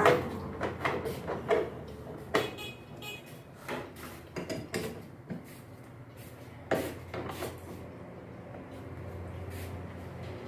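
Irregular metallic clanks, knocks and clicks of a wrench and metal parts, a few ringing briefly, as counterweights are bolted onto a washing machine's tub. A faint steady hum runs underneath.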